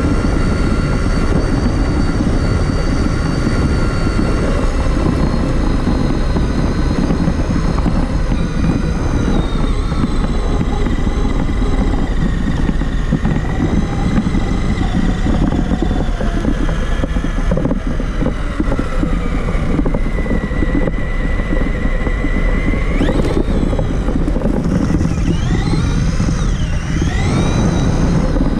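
Traxxas Summit RC truck driving, heard from a camera mounted on the truck: the electric motor and geartrain whine, drifting up and down in pitch with speed, over a loud, steady rumble of tyres, suspension and ground noise. The whine climbs sharply about two-thirds of the way through and again near the end as the truck speeds up.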